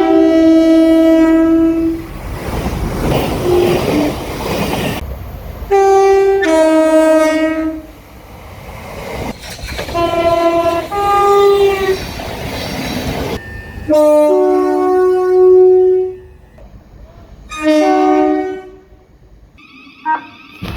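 Train horns sounding in repeated two-note blasts, each a short high or low note stepping straight to the other, about five times. Between the first two blasts comes the rumble and rush of a passing train.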